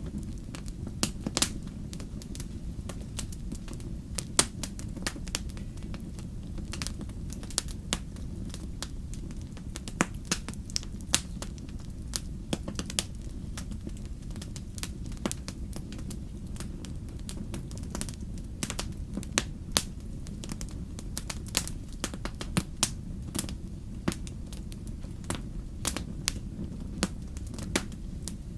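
Wood fire crackling, with irregular sharp pops and snaps several times a second over a steady low rumble.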